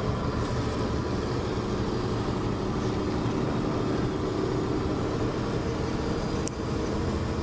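Fuel delivery truck driving along, its engine and road noise steady inside the cab, with one short click about six and a half seconds in.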